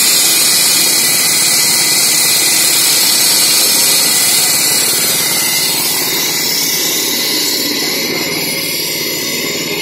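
Walk-behind road saw running: its petrol engine drives a belt-driven, water-cooled blade through the road surface. The result is a loud, steady grinding hiss over the engine's drone, easing a little in the second half.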